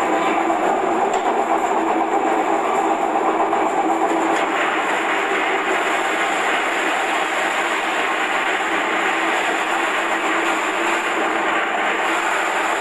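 Electric vegetable cutting machine running steadily while cutting potatoes into thin strips: a constant motor hum with a rattling, clattering noise from the cutter.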